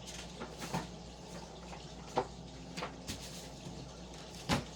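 Scattered handling noises: light clicks and rustles of parts and paperwork being handled, with a sharper knock about two seconds in and another near the end, over a faint low hum.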